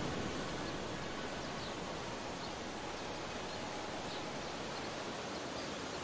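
Ocean surf washing in a steady, even hiss, with no distinct wave breaks standing out.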